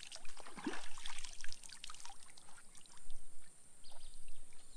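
Hands sloshing and dunking a cloth brown-bag water filter in shallow water to saturate it: irregular small splashes and trickles.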